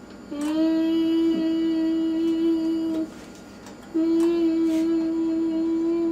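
A voice humming one long, level note twice with a short breath between, a vocal imitation of a microwave oven running.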